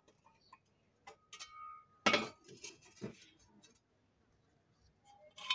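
Metal cooking pan clanking against a wood-fired clay stove as it is handled and set in place: a few scattered knocks, the loudest about two seconds in and another near the end, some with a short metallic ring.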